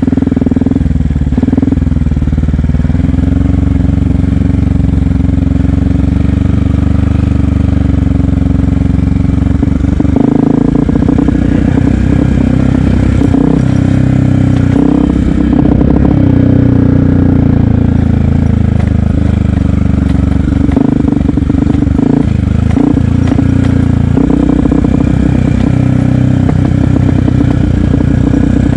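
Yamaha WR125X's single-cylinder four-stroke engine running under way, its pitch rising and falling with the throttle, with scattered knocks and clatter.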